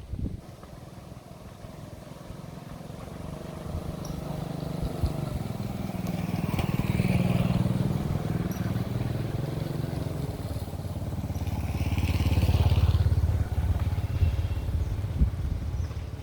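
A motor engine running, swelling louder twice and easing off between, starting and stopping abruptly.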